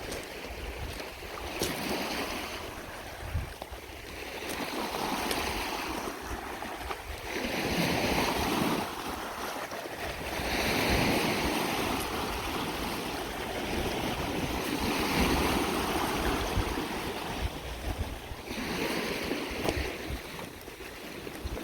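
Lake Superior waves washing onto a rocky shore, each wave swelling and falling away every three to four seconds, with wind rumbling on the microphone.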